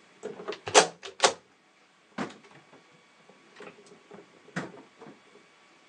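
Sharp clicks and knocks of a hard mixer road case being handled and opened. There is a quick cluster in the first second and a half, then single knocks about two seconds in and again near the middle of the second half.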